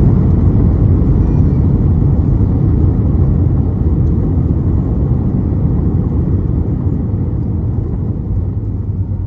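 Cabin rumble of an Airbus A320 rolling out on the runway after touchdown: a loud, steady, deep roar of the engines and wheels that slowly gets quieter as the airliner slows down.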